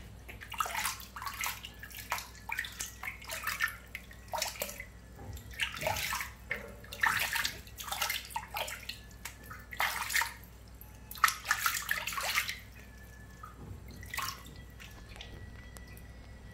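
Water being scooped by hand and poured and splashed over a baby monkey in a basin, in irregular splashes and trickles for about twelve seconds, then one last splash after a short pause.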